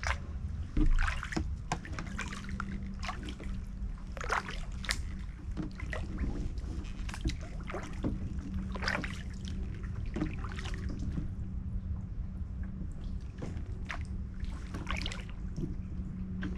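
Kayak paddle strokes: the blade dipping and splashing in the creek water and dripping, at irregular intervals, with a louder knock about a second in. A steady low hum runs underneath from about two seconds in.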